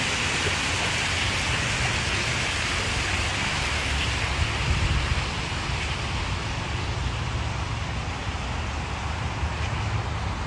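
Steady rushing and splashing of an outdoor water feature's flowing water, easing a little about halfway through, with wind rumbling on the phone's microphone.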